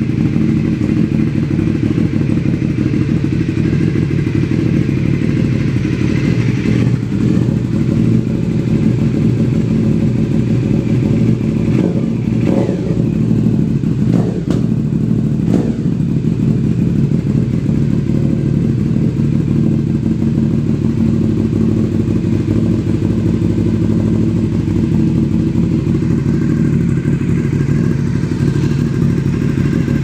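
Aprilia Shiver 750's 90-degree V-twin engine idling steadily through twin SC-Project aftermarket mufflers, warming up.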